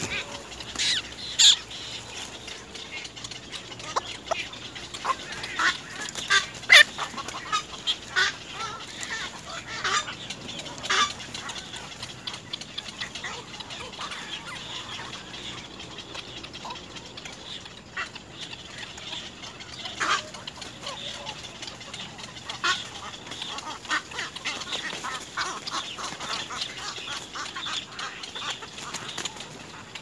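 Black-crowned night heron nestlings calling: short, sharp, irregular call notes, some loud, clustered in the first dozen seconds and again from about twenty seconds on.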